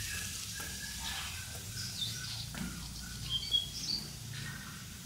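Small birds chirping in short, scattered calls over a steady low outdoor background hum, with a few faint knocks.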